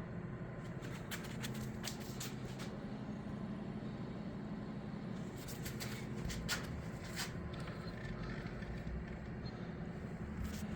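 Clusters of light metallic clicks and ticks over a steady low hum: handling on a Bridgeport milling machine while its head is trammed with an indicator swept over the table. One cluster comes about a second in, another around the middle, and a single click near the end.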